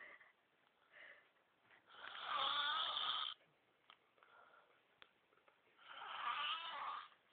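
A man snoring: two long snores, each about a second and a half long and about four seconds apart, with a fainter breath between them.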